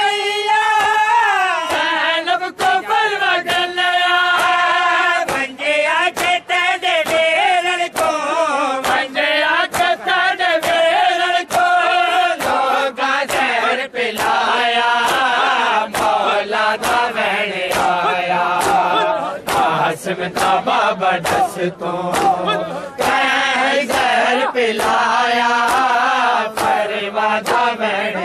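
A group of men chanting a Punjabi noha lament in unison, with a steady beat of sharp chest-beating (matam) slaps from the crowd, roughly two a second.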